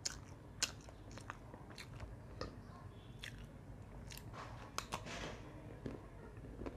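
A person biting into and chewing crunchy food close to a clip-on microphone: a dozen or so short, sharp crunches at irregular intervals.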